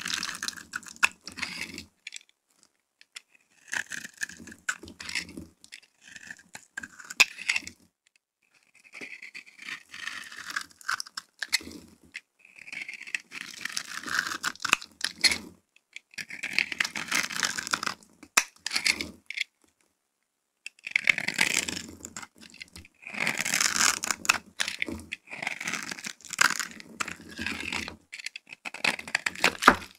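A utility knife blade cuts and scrapes bars of dry soap, breaking off small pre-scored soap cubes and shavings. The crisp crunching and scraping comes in repeated bouts with short pauses between them.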